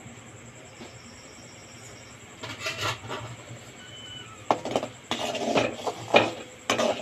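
A metal utensil stirring milk in a metal pot, scraping and clinking against the pot's bottom and sides. It starts with a few scattered clicks about two and a half seconds in and turns into a quick, busy run of knocks and scrapes in the second half.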